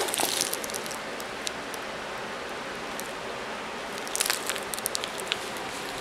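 Handling noise from a laminated, polyurethane-coated diaper bag: faint rustling and crinkling of the coated fabric, with a short cluster of crackles about four seconds in, over a steady background hiss.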